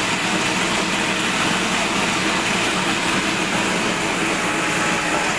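Plastic-waste crusher machine running with a steady, loud mechanical noise that holds at an even level.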